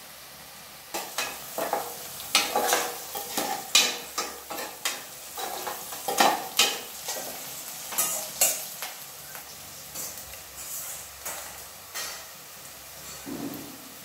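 Sliced onions frying in oil and ghee in an aluminium pressure cooker, sizzling while being stirred with a metal ladle. The ladle scrapes and knocks against the pan in irregular strokes from about a second in, thinning out near the end.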